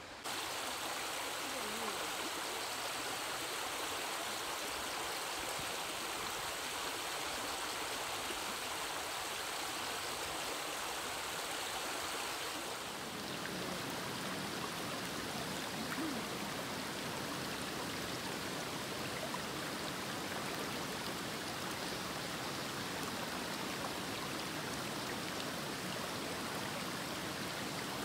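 Shallow mountain stream running over stones and gravel: a steady rushing and babbling that turns a little fuller and lower about halfway through.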